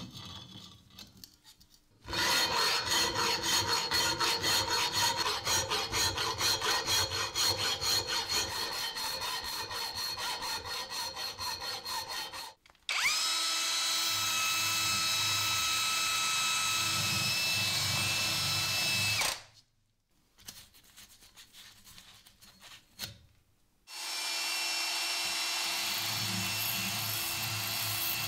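A power tool spinning a mounted grinding stone inside the holes of an old metal pulley, grinding away burrs. It runs in three spells: a loud one with a fast even chatter from about two seconds in, a steadier whining one from about thirteen seconds, and another steady one from about twenty-four seconds. There are brief pauses with small knocks between them.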